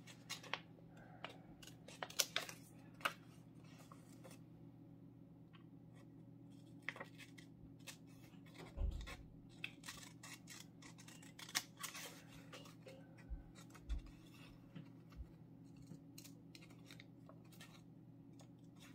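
Scissors snipping through a sheet of paper in short, irregular cuts. A faint, steady low hum runs underneath.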